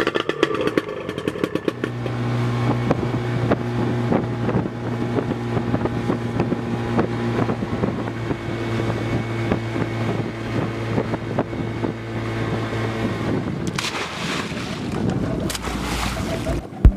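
Outboard motor of a small fishing boat clattering into life, then running at a steady pitch. Near the end comes a loud rush of splashing water as a wire cage fish trap goes over the side.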